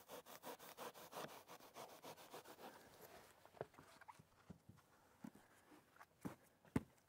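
Faint quick rasping of a long knife sawing through a Rockwool stone wool insulation board, about five strokes a second, stopping about three seconds in. A few faint scattered taps and clicks follow.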